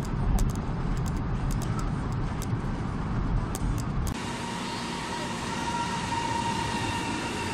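Rumble inside a moving high-speed train, low and steady with a few light clicks. About four seconds in it cuts to a steadier hum beside a high-speed train standing at a platform, with a faint steady whine.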